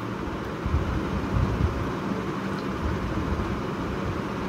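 Steady low rumble of a running ceiling fan, with a faint steady hum.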